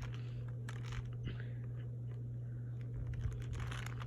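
Light clicks and rustling from fireworks packaging being handled, over a steady low hum.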